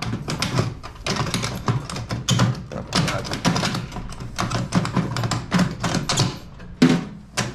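Rapid, irregular clatter of knocks and taps as the microwave's sheet-metal chassis and plastic control-panel parts are handled and worked loose, with a sharper knock near the end.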